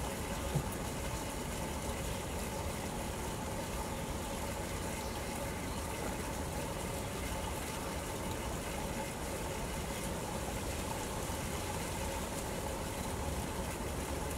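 Steady low background rumble with a faint steady mechanical hum; a single brief click about half a second in.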